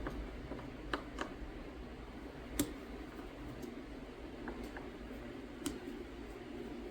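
Scattered small clicks and taps of a tool and small metal parts as the pump side of a Walbro SDC chainsaw carburetor is taken apart, the sharpest click about two and a half seconds in.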